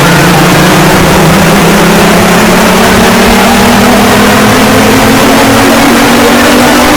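Extremely loud, heavily distorted emergency alarm tone, its pitch rising slowly and steadily throughout.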